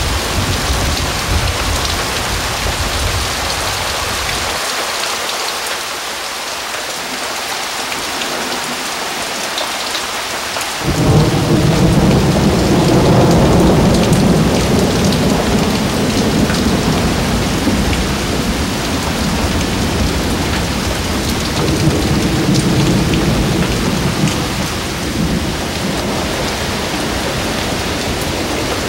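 Heavy rain pattering steadily on pavement, puddles and leaves. About eleven seconds in, a roll of thunder sets in suddenly and rumbles on for several seconds, swelling again later.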